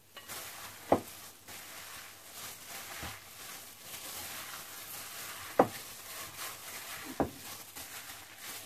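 Gloved hands kneading and mixing raw ground-meat mixture in a ceramic bowl: disposable plastic gloves rustling and the mince squishing, with three short smacks, the loudest about halfway through.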